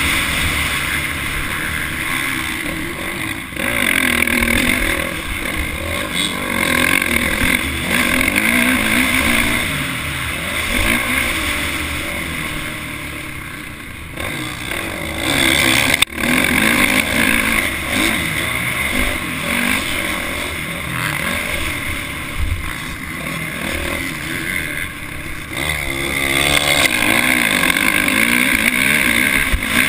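Motocross dirt bike engine heard from on board the bike, revving up and down with the throttle, mixed with wind rush. The revs ease off into a corner around the middle and climb again, with one sharp knock just past halfway.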